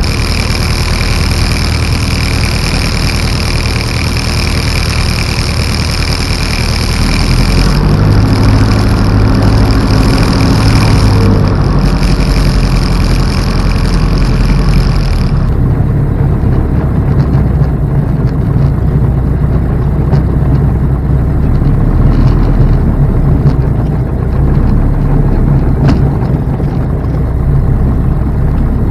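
Single-engine light aircraft's piston engine running on the ground, heard from inside the cockpit, its note rising and getting louder about a quarter of the way in. A steady high whine over the first half cuts off suddenly about halfway through.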